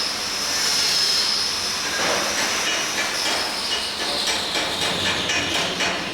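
Welding work: a steady hiss, joined by irregular crackling from about two seconds in.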